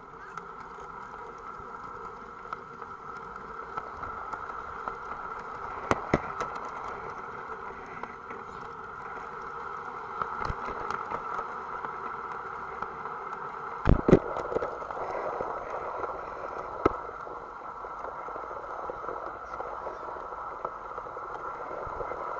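A Gauge 1 model train running along its track, heard from on board: a steady running whine with wheels rattling over the rails. There are a few sharp knocks, the loudest a close pair about two-thirds of the way through.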